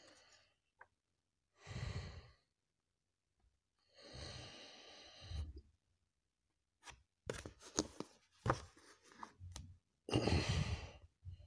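Paper comic-book pages being turned and handled close to the microphone: several short rustling swishes, with a run of small clicks and taps in between as the book is handled and shut.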